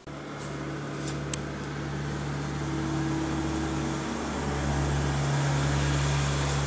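Steady low machine hum, like an appliance motor or fan running, cutting in abruptly.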